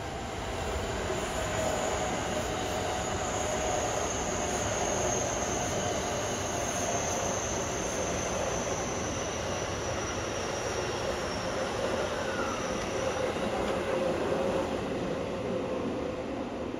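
A JR West 225-series and 223-series electric multiple unit running past with a steady rumble of wheels on rail. A thin high whine and a lower hum both fall slowly in pitch through most of the passage.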